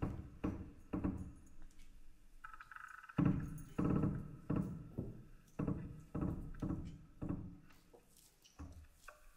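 Dull, low percussive thumps struck by hand on a large sculptural instrument, coming irregularly a bit under two a second and growing fainter near the end. A brief ringing pitched tone sounds about two and a half seconds in.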